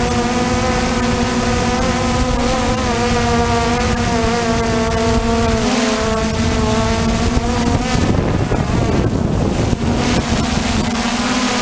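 Quadcopter drone's motors and propellers in flight, a steady buzzing whine that wavers slightly in pitch, with wind rushing over the microphone. About eight seconds in the whine briefly drops under a rush of wind noise, then returns.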